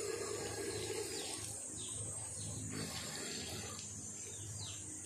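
Outdoor ambience among trees: a steady high-pitched insect drone with a few short, falling bird calls over it.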